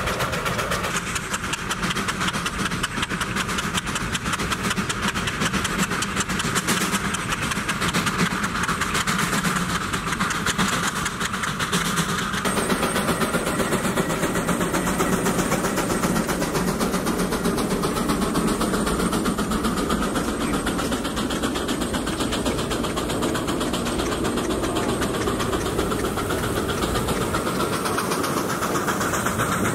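J. I. Case 110 steam traction engine running as it pulls a gang plow, its exhaust beating rapidly over a noisy hiss. The sound shifts abruptly about twelve seconds in.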